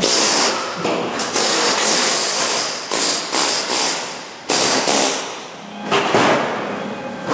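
A handheld pneumatic tool runs in repeated short bursts against the sheet-metal seam of a 1968 Camaro's deck filler panel, with about half a dozen bursts of half a second to a second each, working the old panel loose.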